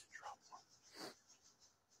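Near silence: faint background with a few soft short sounds near the start and one brief soft noise about a second in.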